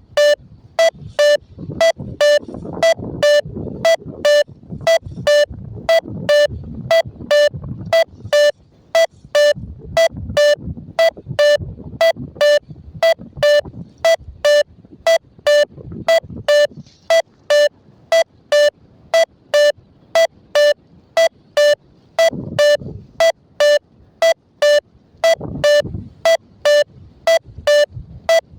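XC Track paragliding variometer app's climb tone: short electronic beeps at one steady pitch, about two a second, with a softer low rumble between them. A vario beeps like this to signal that the glider is climbing.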